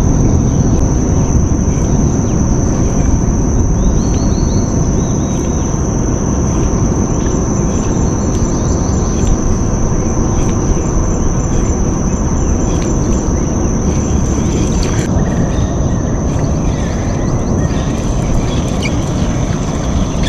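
Steady high-pitched drone of insects in the mangroves, over a constant low rumble of noise.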